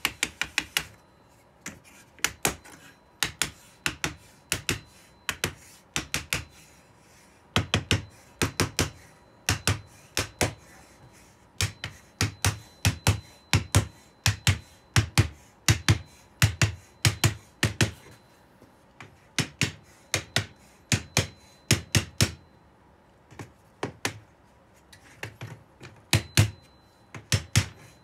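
Small hammer tapping on a wooden block held against a walnut kumiko lattice, driving the strips down into the grid: quick runs of sharp wooden taps with short pauses between.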